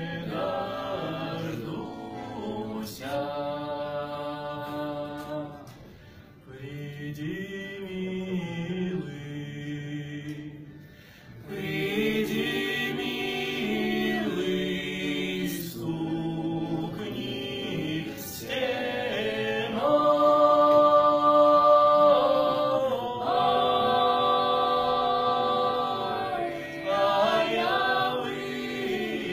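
Small mixed group of men's and women's voices singing a song a cappella in harmony, in long held phrases. Two short breaks between phrases come in the first half, and the singing is loudest about two-thirds of the way through.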